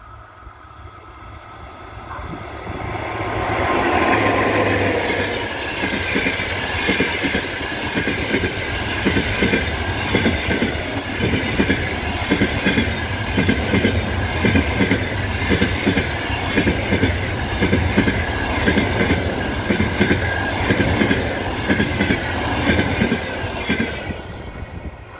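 EP1M electric locomotive hauling a passenger train passes close by at speed. Its sound builds to a peak about four seconds in, with a falling tone as the locomotive goes by. Then comes a long run of rhythmic clickety-clack as the coaches' wheels cross the rail joints, fading near the end as the last coach passes.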